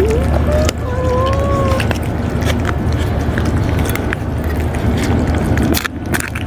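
A cat meows twice in the first two seconds: a short rising call, then a longer, slightly arching one. Under it runs a steady low rumble with scattered small clicks.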